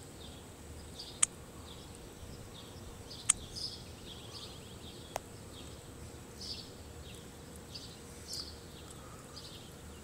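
Short, high chirps repeating roughly once a second over a low, steady background, broken by three sharp clicks in the first half.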